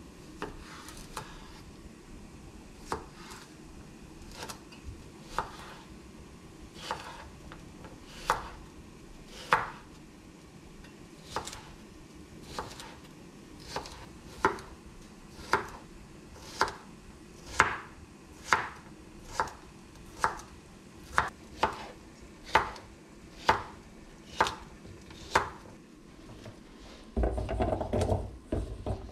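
Chef's knife chopping cucumber on a wooden cutting board, each stroke a sharp knock on the board, about once a second. Near the end comes a rough scraping as the diced cucumber is pushed off the board into a stainless steel bowl.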